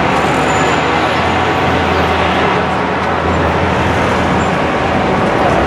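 Busy city street traffic: a steady wash of road noise with a heavy vehicle's engine running close by, its low hum swelling for a couple of seconds mid-way.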